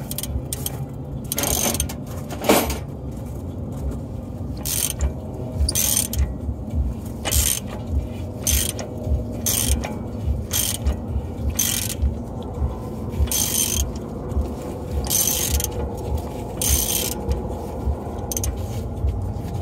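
Hand ratchet wrench being cranked on the car's suspension bolts, in a string of short bursts of clicking, with a low rhythmic pulsing underneath.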